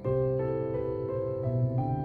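Background music on a keyboard instrument: a chord struck at the start, then a melody of single held notes changing about every third of a second.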